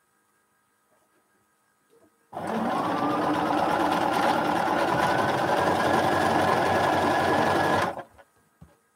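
Bernina sewing machine stitching a seam: it starts about two seconds in, its motor whine rising as it comes up to speed, runs steadily for about five seconds, then stops abruptly.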